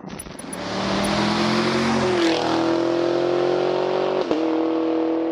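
Channel-logo sound effect: an engine-like drone that rises in pitch about two seconds in and then holds steady, with a brief click near the end.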